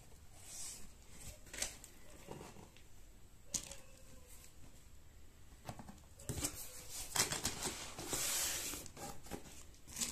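Hands handling a cardboard box and plastic-wrapped mixer grinder parts: scattered light taps and scrapes, then louder crinkling of the plastic wrap from about seven seconds in.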